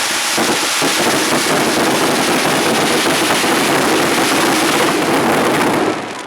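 Large bonfire burning with a dense, steady crackling and rushing of flames, which eases off near the end.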